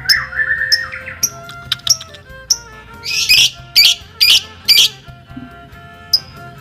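Young lovebird chirping in short, sharp 'crit' calls about twice a second, with four louder, harsher calls in the middle, over background music.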